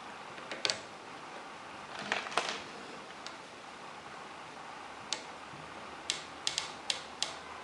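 Scattered light clicks and taps over a steady hiss: a couple under a second in, a few around two seconds, then a quick run of four or five between six and seven and a half seconds.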